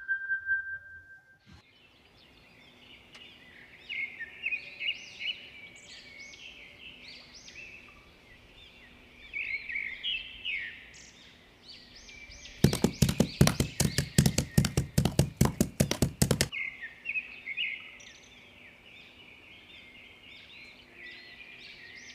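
Birds chirping steadily, with a rapid run of sharp knocks, about five a second, for about four seconds near the middle. It opens with the tail of a ringing tone dying away.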